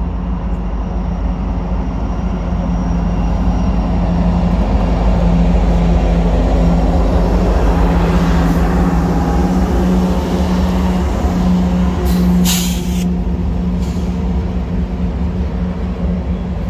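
Norfolk Southern EMD SD70ACe and Union Pacific GE AC44CW diesel-electric locomotives passing close by, their engines running with a steady drone that swells as they approach. Freight cars then roll past with a rumble. A brief hiss comes about twelve seconds in.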